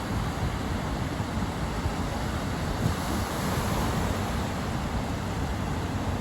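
Wind buffeting the microphone over the steady rush of breaking surf, with a broad swell in the wash about halfway through.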